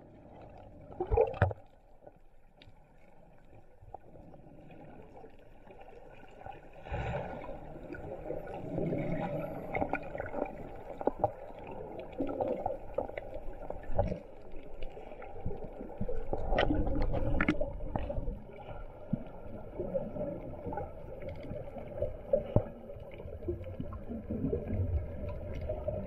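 Muffled underwater sound picked up through a camera housing: a low rumble of water movement, louder for a couple of seconds past the middle, with scattered sharp clicks and knocks.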